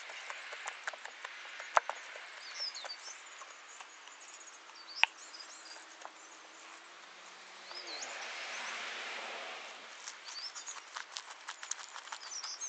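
Small birds chirping, with scattered sharp clicks and crackles from hands squeezing and kneading white slime mixed with foam beads in a plastic bowl. A soft rush of noise swells and fades about eight seconds in.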